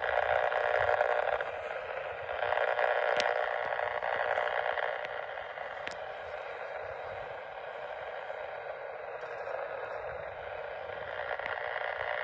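Powerline interference noise from a radio receiver's speaker on the 430 MHz band: a steady, static-like noise, louder for the first five seconds then dropping lower, with two sharp clicks about three and six seconds in. The noise comes from a component on the nearby power pole that is not behaving.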